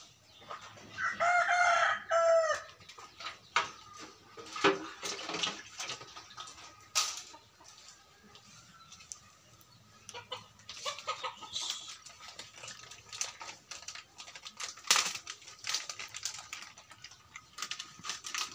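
A rooster crows once, loud, about a second in. Scattered light knocks and clatter follow as a plastic mug is handled at the mouths of green bamboo tubes.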